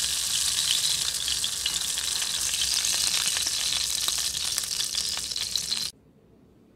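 A ground-meat patty sizzling and crackling in hot oil in a frying pan, a dense hiss full of fine pops. It cuts off suddenly near the end.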